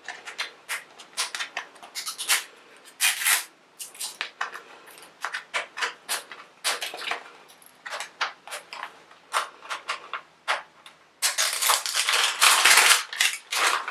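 Plastic packaging being handled and unwrapped: scattered crinkles and small plastic clicks. Near the end comes about two seconds of continuous crinkling.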